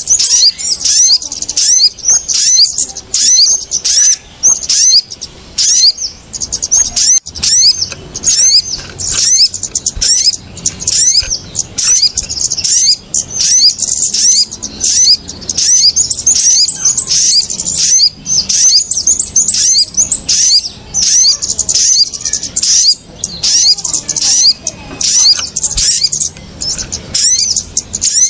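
Bird-lure recording of small birds calling in a noisy, excited chorus: dense, rapid high chirps and twitters, several a second, without a break. The calls are kemade and sogok ontong (sogon) birds, played to draw wild birds down to lime sticks.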